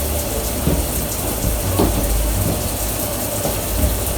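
Water running steadily from a bathroom tap, left on for hair washing, with a few faint knocks.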